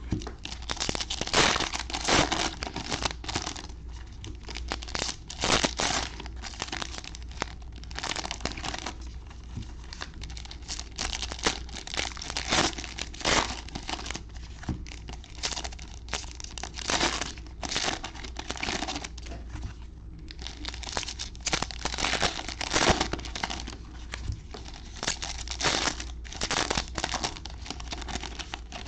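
Diamond Kings baseball card packs being opened by hand: the wrappers crinkle again and again, with irregular tearing as they are ripped open. A steady low hum sits underneath.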